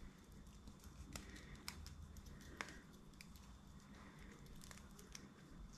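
Faint handling noises: a few scattered soft clicks and light rustles as hands twist a small elastic dental band around the end of a dog's plaited hair, over quiet room tone.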